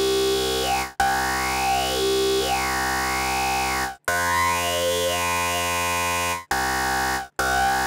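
Tone2 Electrax software synthesizer playing held notes through its Vocal formant filter, two band-pass peaks side by side, with the cutoff swept up and down so the tone glides through vowel-like, talking colours. The notes break off and restart four times, closer together near the end.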